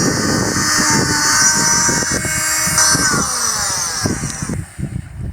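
Power tool cutting a sail batten to length: the motor whines steadily with rattling and knocking as it cuts, then its pitch slides down as it winds down near the end.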